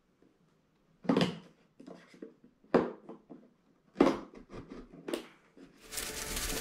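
Cardboard laptop box being handled and worked open: a series of short scrapes and rustles, roughly one every second or so, with quiet between them.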